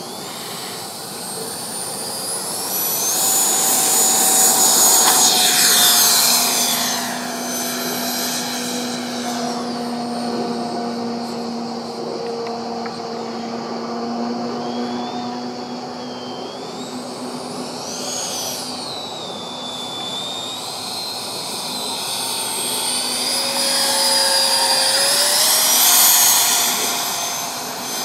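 An 80 mm nine-blade electric ducted fan on a Freewing JAS-39 Gripen RC jet, whining as it spools up over the first few seconds. The whine then rises and falls in pitch and loudness as the jet flies past, loudest about four to six seconds in and again near the end.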